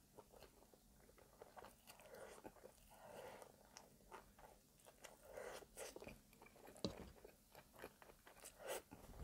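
Quiet, close-miked chewing of soft caramel-soaked brioche French toast, with many small mouth clicks.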